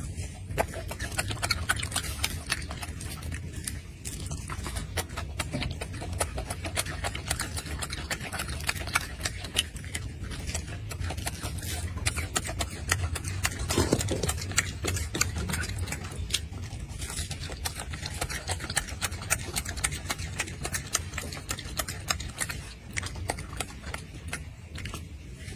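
Golden snub-nosed monkey chewing mandarin orange segments close to the microphone: many rapid wet smacks and clicks over a low steady rumble.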